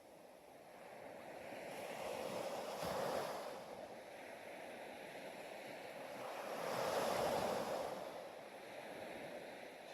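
Ocean waves washing in: rushing surf that swells and fades slowly, twice, with the loudest wash near the end.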